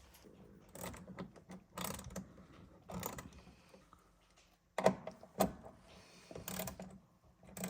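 Irregular clicks and knocks of tools and seat-mounting hardware (nuts, washers, bolts) being handled and fitted, with two sharper knocks about five seconds in.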